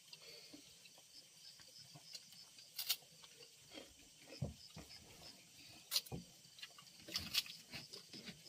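People eating with their hands close to the microphone: soft chewing and mouth smacks, with three louder sharp cracks spread through, the crunch of fried crackers.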